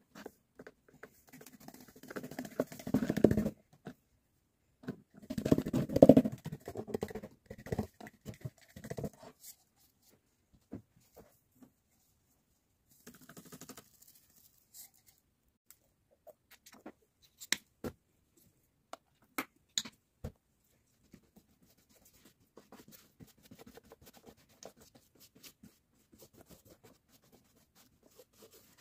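Scratching and pattering handling noises of scenery-making handwork: two dense stretches of scratching in the first ten seconds, then a few single sharp clicks and faint rustling.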